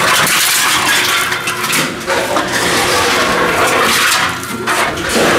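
Tomra T-53 reverse vending machine taking in aluminum cans: its intake mechanism runs with a steady loud whir while cans clink and rattle as they are fed through the opening one at a time.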